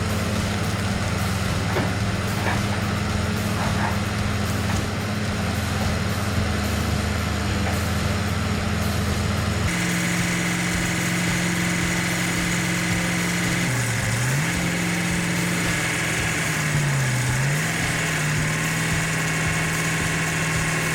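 Heavy machinery engines running steadily. About ten seconds in the sound cuts to a different engine, whose pitch briefly sags twice as it takes load.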